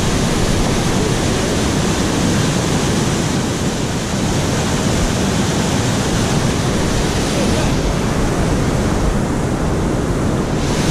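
Loud, steady rush of white water pouring over a concrete weir.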